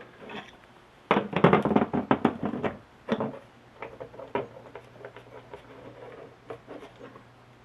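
Metal motor parts and tools being handled on a workbench: a quick flurry of clicks and knocks about a second in, then scattered knocks over a faint steady hum.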